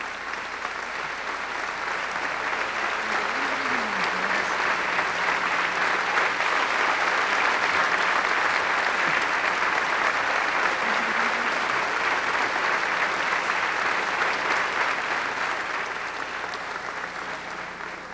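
Large audience applauding in a hall. The clapping swells over the first few seconds, holds steady, then dies away near the end.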